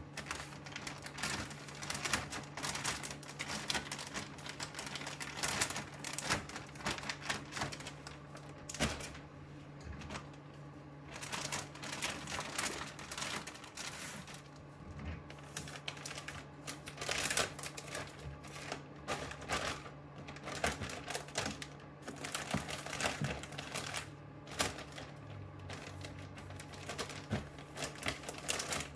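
Clear plastic mushroom grow bags of millet grain being handled and folded: irregular crinkling of the plastic and grain rattling inside, over a steady low hum.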